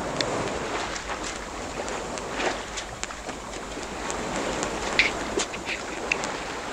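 Water rushing and splashing along the hull of a small sailboat under way at sea, with wind on the microphone. Short splashes come through the steady rush, the loudest about five seconds in.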